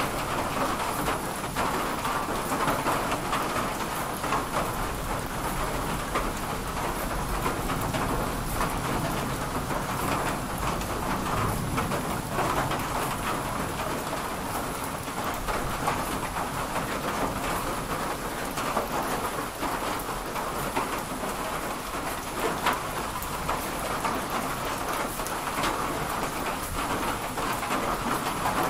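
Steady heavy rain with many individual drop ticks. A low rumble of thunder runs through the first several seconds.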